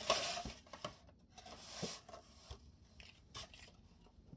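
Hands handling packaging: plastic-wrapped toothbrush heads rustle and rub against a styrofoam insert in two short bursts, followed by a few light clicks.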